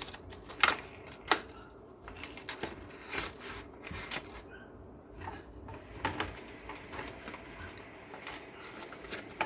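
Hands handling small computer parts: scattered, irregular light clicks and taps, none loud.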